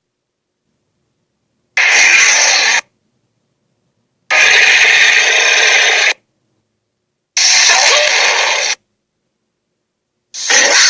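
Albertosaurus dinosaur sound effects: three separate noisy roars, each one to two seconds long, with dead silence between them and a fourth starting near the end.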